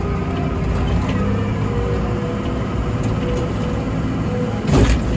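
Komatsu WA100 wheel loader's 4.9-litre diesel engine running steadily while the machine pushes snow, with a short, loud thump near the end.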